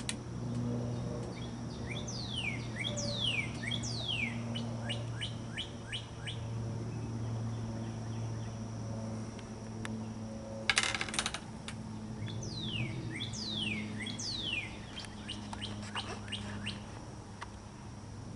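A bird singing in two bouts, each a run of quick downward-sliding whistled notes followed by short chirps. About midway between the bouts comes a brief sharp burst of noise, the loudest sound here.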